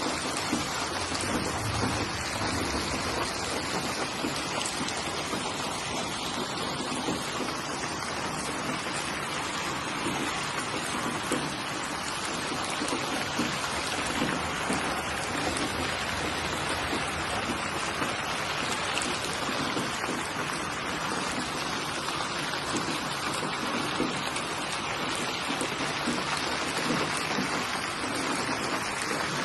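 Steady rainfall: an even, unbroken hiss of rain falling on surfaces.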